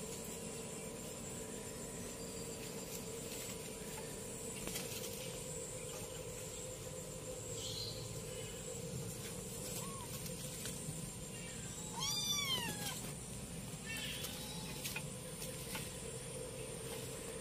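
Calico kitten meowing a few times in short, high calls, one louder and clearer meow about two-thirds of the way through.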